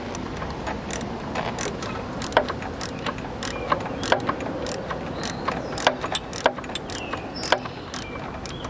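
Irregular metallic clicks and clinks of hand tools and small metal parts being handled while working on a garden tractor, over a steady background hiss.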